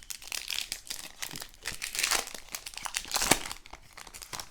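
Foil wrapper of a Panini Prizm football card pack crinkling and tearing as it is ripped open, with a dense run of crackles that is loudest about three seconds in.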